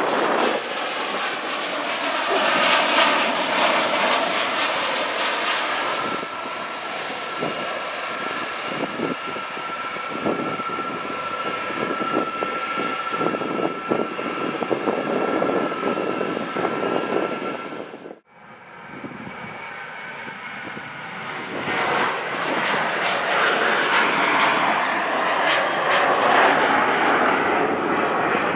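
Boeing 737 jet engines on landing approach and touchdown, with a steady whine over the engine noise. About two-thirds of the way in, the sound cuts off abruptly and gives way to a second jet airliner, an Airbus climbing out after takeoff, its engine noise building louder.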